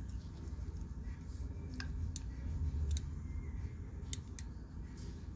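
A few sharp, separate clicks and ticks of small screws and metal switch parts being handled and fitted, over a steady low hum.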